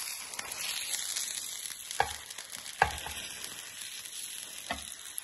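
Omelette sizzling in a hot nonstick frying pan while a spatula pushes it along the pan, with three sharp taps of spatula on pan: about two seconds in, again a moment later, and near the end.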